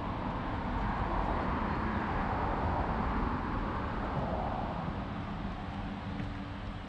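Steady outdoor background noise: a low rumble under a broad hiss, with no distinct single source standing out.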